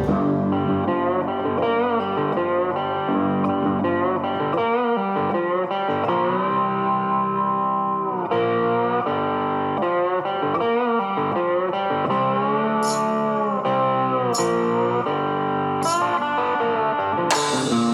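Background music: guitar-led instrumental with bending, held electric guitar notes.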